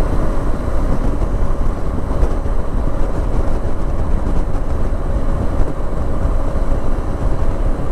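Steady wind rumble and road noise of a vehicle cruising at about 90 km/h on a smooth highway, with a faint steady engine hum under it.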